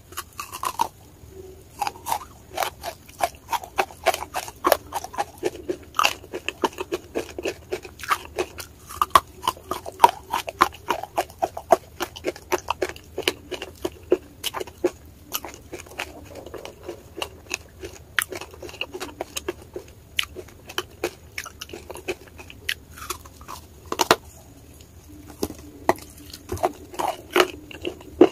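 Biting and chewing hard wet chalk coated in paste, close to the microphone: a steady run of sharp crunches, about two or three a second.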